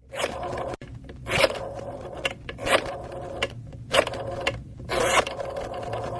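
Repeated rasping, scraping strokes, about one every second and a quarter, over a steady hum.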